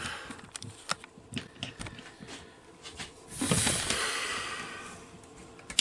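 Light clicks and knocks of handling, then a long breathy sigh about three seconds in that fades away, and a sharp click at the end.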